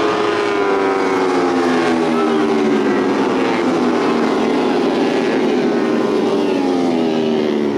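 Four-stroke 150cc underbone racing motorcycle engine running, its pitch falling slowly and evenly as the bike eases off or draws away.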